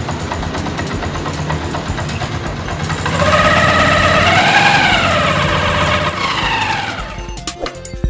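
Honda TMX 125 single-cylinder engine running, with a whine that rises and then falls in pitch from about three seconds in to about seven seconds. Music takes over near the end.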